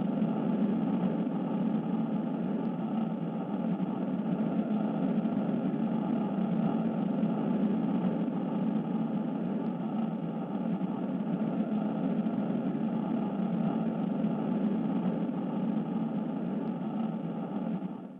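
Steady, noisy rumbling drone laid over the animation, with no beat or melody, dipping away right at the end.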